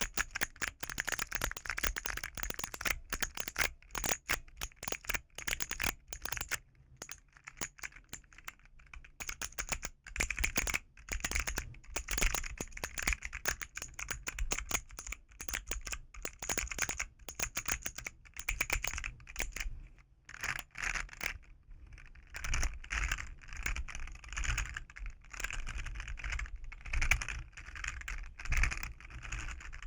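Keys of a keyboard fidget toy being pressed rapidly, a dense run of clacking keystrokes with short lulls about seven seconds in and again around twenty seconds.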